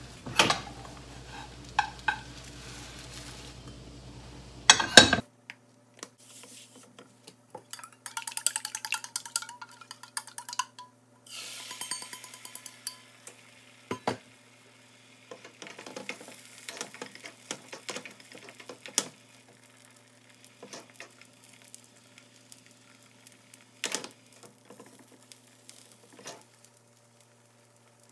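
Long cooking chopsticks tapping and scraping in a frying pan while a thin egg omelette cooks with a light sizzle. A steady low hum in the first few seconds cuts off abruptly.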